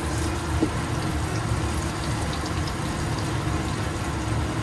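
Steady whir of a kitchen range-hood exhaust fan, with hamburger patties sizzling in a frying pan on an induction hob.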